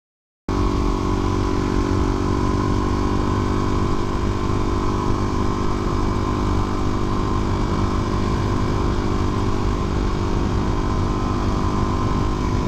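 Engine running steadily at a constant pitch, cutting in abruptly about half a second in after total silence.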